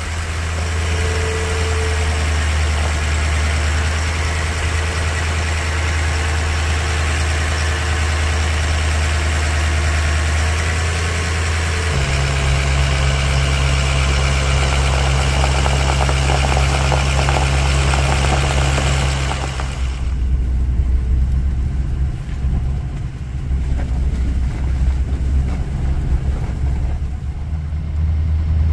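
Lifted Ford dually pickup driving on a snow-covered gravel road: a steady low engine drone with tyre and road noise. The sound shifts abruptly twice, about twelve and twenty seconds in, and the hiss is much weaker after the second change.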